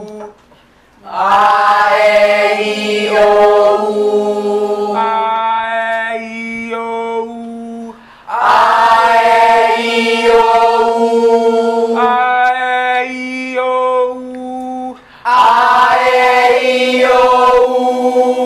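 A group of singers doing a vocal warm-up exercise, singing open-mouthed vowels together. They sing three long phrases of held notes that step from pitch to pitch, with a short breath between phrases.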